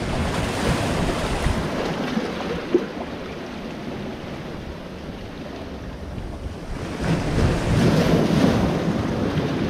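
Sea swell washing onto and breaking against shoreline rocks. One surge comes near the start and a louder one about seven seconds in.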